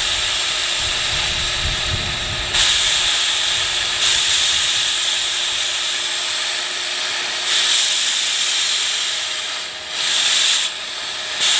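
High-pressure air hissing out of the release (bleed) valve on a PCP air compressor's fill hose, venting the pressure left in the line after filling an air rifle so the fill probe can be disconnected. The hiss swells louder several times as the valve is worked, then eases off near the end.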